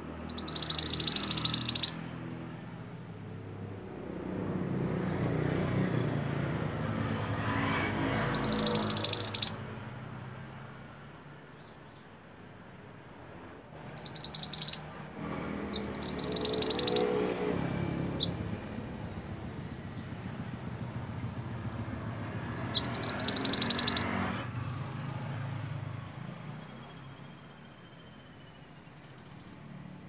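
Male scarlet minivet singing in five short bursts of fast, high, trilled notes, each lasting one to two seconds, several seconds apart, over a low background rumble.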